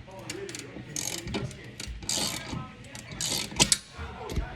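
Ratchet wrench clicking in short repeated strokes, about one a second, as bolts on a TV wall mount are turned.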